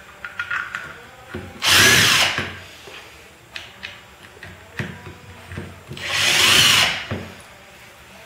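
Cordless screwdriver driving screws into the plastic end cover of a generator housing during reassembly: two short runs of the motor, about two seconds in and about six seconds in, each under a second long, with small clicks and handling knocks between.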